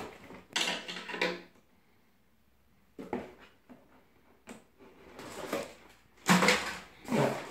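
A cardboard toy box being opened and handled on a table: a few short knocks and scrapes, then a louder rustle of the plastic-wrapped contents being pulled out near the end.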